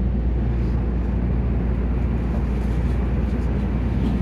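Tama Monorail car's running noise heard from inside the cabin: a steady low rumble from the rubber-tyred straddle-beam train travelling along its concrete guideway.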